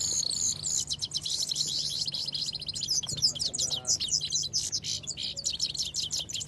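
Caged songbirds singing without pause: a fast, high, busy twittering of rapid trills and chips, with several songs overlapping.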